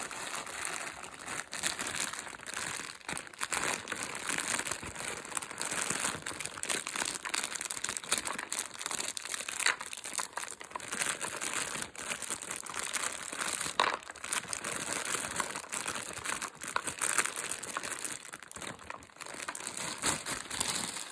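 Continuous crinkling and rustling of a plastic bag of mushroom spawn dowels being handled, with many small irregular clicks.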